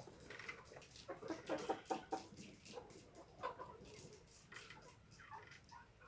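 A flock of brown laying hens clucking, many short overlapping calls that are busiest in the first two seconds and thin out toward the end.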